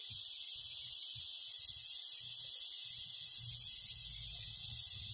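Steady hiss of air escaping from a punctured car tire through the nail hole, reamed open and not yet plugged. A low rumble joins in from about three and a half seconds in.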